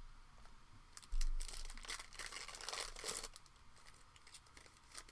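Foil trading-card pack wrapper crinkling and tearing as it is opened by hand, with a dull bump about a second in. The crackling is densest for about two seconds, then gives way to fainter handling rustles.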